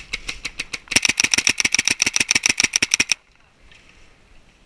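Paintball markers firing a rapid string of shots, about ten a second, ending about three seconds in, with a few fainter shots before the fast string.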